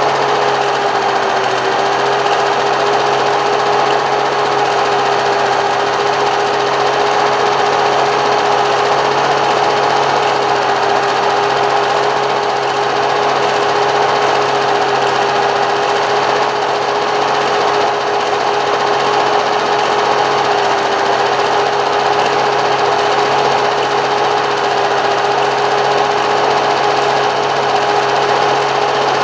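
Steady mechanical whirring with a constant humming tone.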